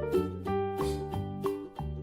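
Upbeat children's background music: a bouncy bass line and plucked-string melody over a steady drum beat.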